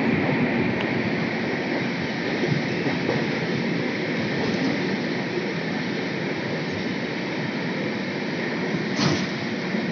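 Duronto Express coach rolling slowly through a station, heard from its doorway: steady rumble and clatter of wheels on rail with wind noise. A single sharp clank about nine seconds in.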